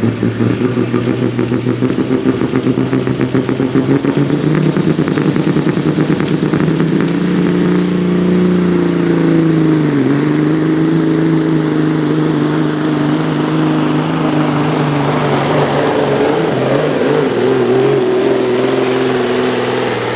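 Semi truck's Cummins KT diesel engine pulling a sled under full load. The loudness pulses at first; a high whistle rises about seven seconds in and holds, and the engine note dips briefly about ten seconds in.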